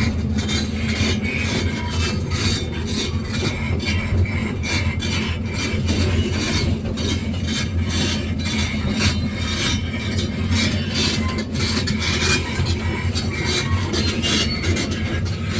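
Excavator's diesel engine running steadily, with many short metallic knocks and scrapes over its low hum throughout.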